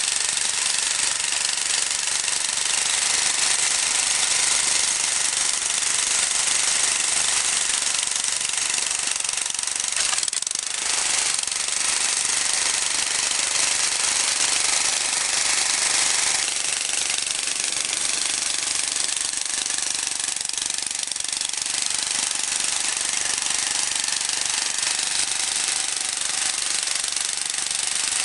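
Walk-behind cultivator's small petrol engine running steadily under load, its rotary tines churning through soil and weeds as it hills up crop rows.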